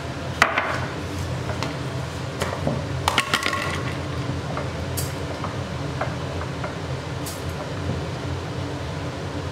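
Handfuls of soaked rice being squeezed out and put into a mixer-grinder jar: a sharp knock about half a second in, a short clatter of ringing clinks about three seconds in, and a few light ticks, over a steady background hum.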